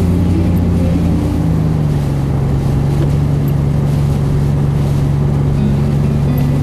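Inside a car driving on a snow-covered road: a steady low engine hum over road noise, its pitch stepping down once about a second and a half in.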